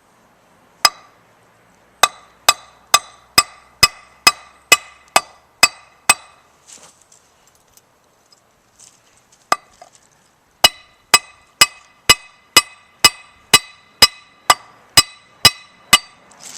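Hammer blows crimping a ferrule onto 5/64 steel snare cable, each strike sharp with a metallic ring. About two blows a second in a run of about eleven, a pause of a few seconds broken by one lone blow, then a second run of about fourteen.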